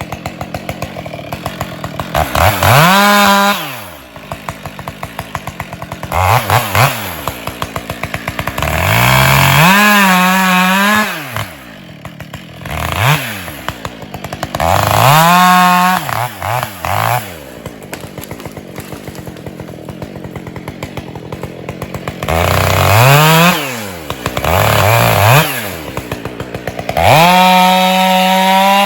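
Husqvarna 572 XP two-stroke chainsaw alternating between a low idle, where the separate firing pulses can be heard, and full-throttle runs. It revs up to a high, steady pitch for a second or two and drops back to idle about eight times.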